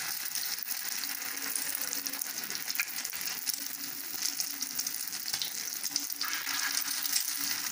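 Egg-coated chicken shami kebabs sizzling and crackling in shallow oil on a flat tawa, with a pale, freshly laid patty bubbling in the oil.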